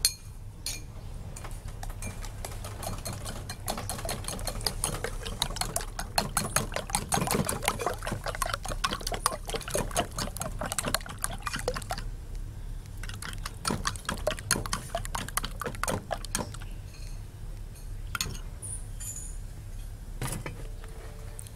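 Metal spoon beating raw eggs in a ceramic bowl: rapid clinks of the spoon against the bowl with the slap of the liquid, thinning after about twelve seconds to a few separate taps. A steady low hum runs underneath.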